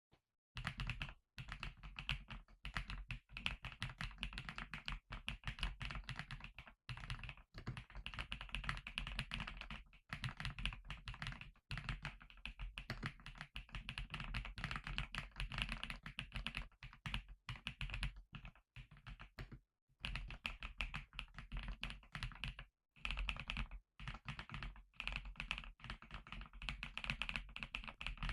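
Typing on a NuPhy Node 100 mechanical keyboard with brown tactile switches: fast, continuous keystroke clacks, broken by a few brief pauses.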